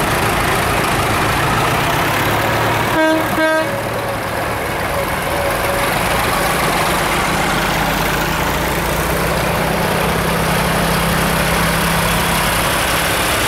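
Vintage tractor engines, among them a David Brown 996 and Massey Fergusons, running steadily as the tractors drive past one after another. About three seconds in, a horn gives two short toots half a second apart.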